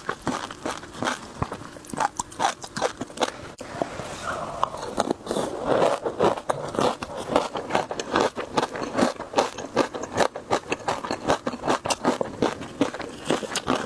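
A person chewing and biting into shrimp, with a dense run of crisp crunches and wet mouth clicks, busiest in the middle.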